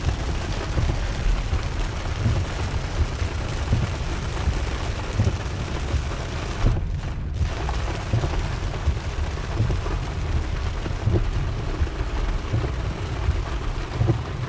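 Heavy rain drumming on a car's roof and windshield, heard from inside the cabin, over a low, unsteady rumble from the car driving on the wet road. The hiss of the rain briefly drops out about seven seconds in.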